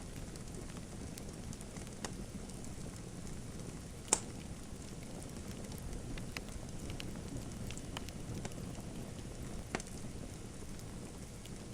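Wood fire crackling in a fireplace: a steady low rush of flames with scattered sharp pops, the loudest about four seconds in and another near ten seconds.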